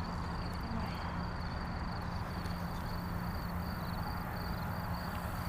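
Insects, crickets, chirping in a steady pulsing high trill, over a low steady hum.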